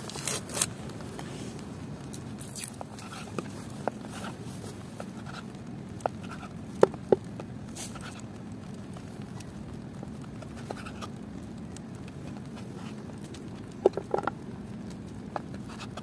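Scattered sharp knocks and clicks with a few brief brushing swishes, over a steady low hiss; the loudest knocks fall about 7 seconds in and again about 14 seconds in.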